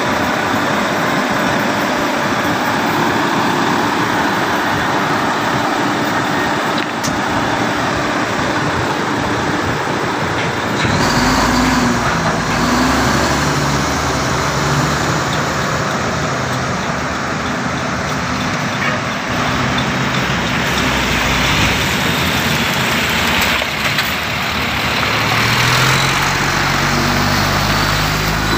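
Volvo L220H wheel loader's diesel engine working under a steady, loud mechanical din. About eleven seconds in, the deep engine note comes through clearly, and near the end it rises in steps as the engine revs up.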